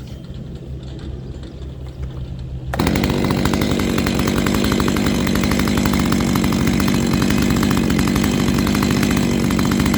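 Two-stroke Stihl chainsaw, rebuilt with a Hipa aftermarket cylinder, piston and rings, idling and then opened to full throttle about three seconds in and held at high revs, with no cutting. The engine is fresh and not yet broken in, and it runs pretty good.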